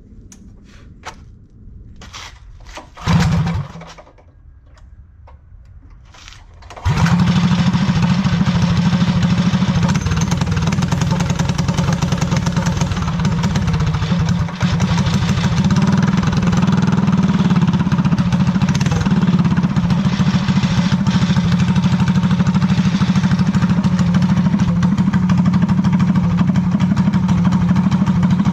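Predator 212 single-cylinder four-stroke engine on a drift trike being started: a short burst of engine sound about three seconds in, then it catches about seven seconds in and runs steadily and loudly.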